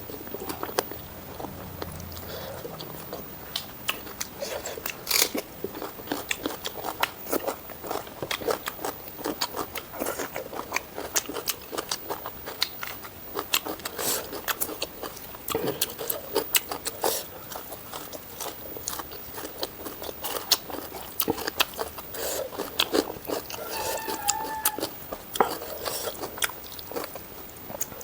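Close-miked eating: steady chewing of mouthfuls of curry, rice and raw salad vegetables, with frequent crunches and wet clicks and smacks of the mouth.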